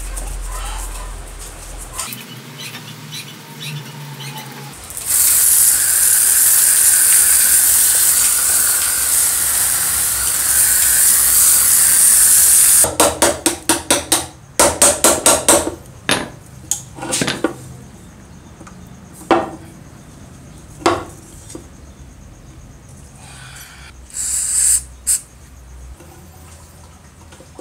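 Hand work on a small compressor pump: brush scrubbing in cleaning liquid, then about five seconds in a loud steady hiss of spray lasting around eight seconds. It stops abruptly and gives way to a quick run of sharp metal clicks, about six a second, and then scattered single clicks and taps as the pump's shaft fitting is worked with pliers.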